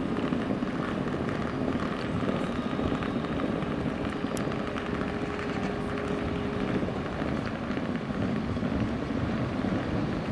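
Electric train running at the station: a steady low rumble, with a faint steady whine that stops about two thirds of the way through.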